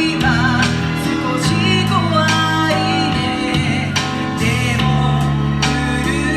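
Band music: a song with singing over sustained bass notes and a regular drum beat.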